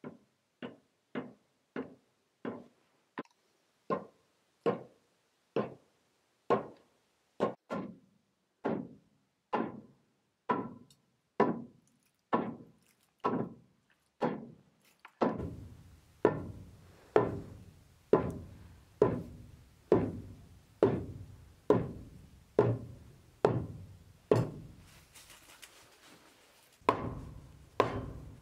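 A heavy long-handled wooden mallet strikes pine floorboards in a steady rhythm of about one blow a second, some thirty blows in all. The blows drive the boards along the dovetail rebates in the joists and knock them tight against each other.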